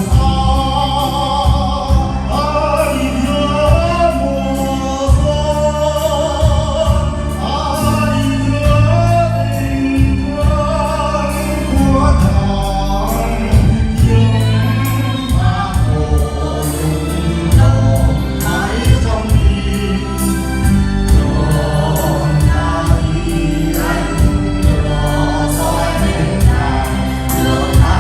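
A group of amateur singers sings together over an amplified backing track with a bass line and a steady beat.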